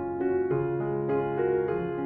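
Background music: gentle piano playing a melody of changing notes.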